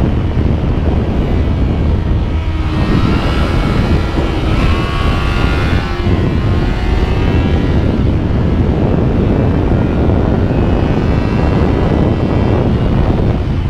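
Motorcycle riding at speed, with heavy wind rush on the microphone. The engine can be heard revving up, rising in pitch a few seconds in.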